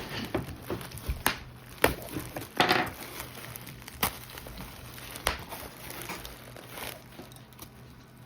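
Bubble wrap and packing being pulled out of a shipping box: crinkling, with several sharp crackles and clicks spread through.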